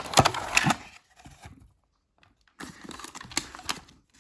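Plastic packaging crinkling and rustling, with a few handling clicks, as vacuum cleaner accessories are unwrapped. The rustling stops for about a second in the middle, then resumes more lightly.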